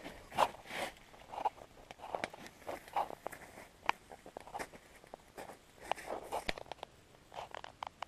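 Footsteps in snow, an uneven step roughly every half second, with a few sharp clicks among them.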